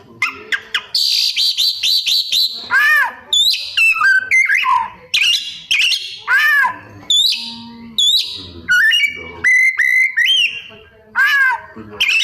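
An Oriental magpie-robin (kacer) singing continuously: a fast, varied string of whistles, chirps and sweeping notes, with a harsh buzzy note about a second in and a held whistle near the end. The bird is 'gacor', singing freely and working imitations of other birds into its song.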